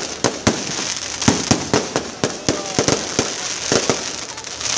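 Fireworks going off: a rapid, irregular series of sharp cracks and bangs, about three a second, over a steady hiss.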